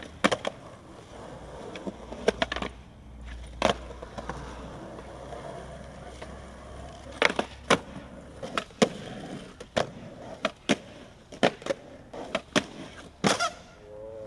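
Skateboard on concrete: about a dozen sharp clacks of the board popping, hitting the ledge and landing, with the wheels rolling between them. The clacks are sparse at first and come thick and fast in the second half.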